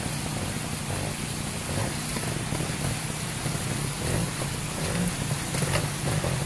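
Trials motorcycle engine running at low revs, the throttle opened and closed in small amounts, over a steady hiss.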